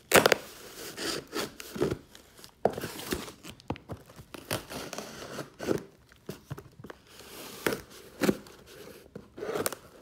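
A package being handled and opened: irregular rustling, crinkling and scraping with scattered sharp knocks and clicks, the loudest a knock right at the start.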